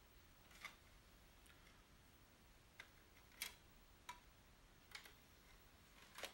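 Faint clicks from a Sony SLV-D380P DVD/VCR combo's disc tray mechanism and open/close button as the tray is opened and then closed. There are about eight scattered single clicks, the loudest about three and a half seconds in, with no motor hum to be heard.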